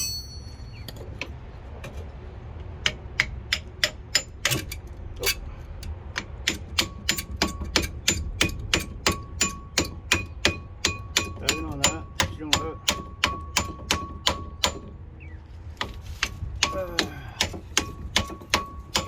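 Ratchet wrench being worked on a bolt during brake caliper work: sharp metallic clicks, about three to four a second, with a short pause near the end.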